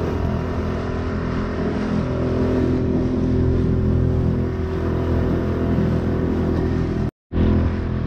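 Small 2-horsepower Honda four-stroke outboard motor running steadily, pushing a small boat along, with a hiss of wind and water. The sound cuts out completely for a moment near the end.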